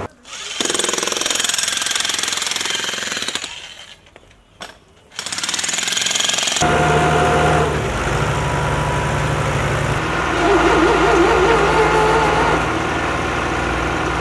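Jackhammer breaking up the ground at the base of a concrete power pole, in two spells with a short pause about four seconds in. From about six and a half seconds a tractor's diesel engine runs steadily.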